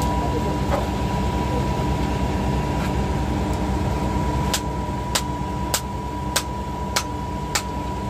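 Diesel engines of a concrete mixer truck and line pump running steadily: a low rumble with a thin steady whine. From about halfway, sharp clicks repeat about every 0.6 seconds, six in all.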